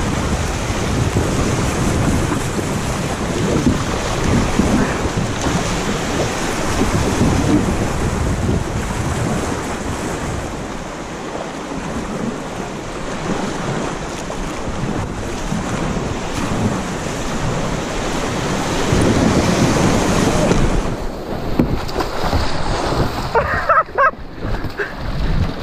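River rapids rushing and splashing around a kayak, with wind buffeting the microphone. Near the end the sound turns choppy and dull as the kayak rolls over into the water.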